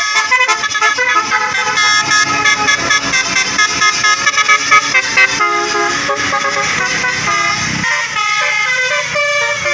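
A bus's telolet basuri multi-tone horn playing a rapid tune of short honked notes, over a low rumble that drops away near the end.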